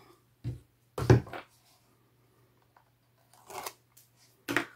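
Sheet of cardstock being handled: a few brief rustles and taps of the card against the table, the loudest about a second in.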